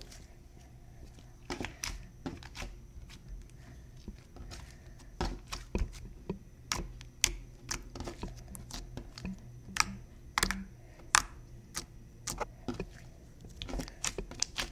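Glossy, stretchy slime being squeezed and worked by hand, giving off irregular small clicks and pops from air pressed out of it.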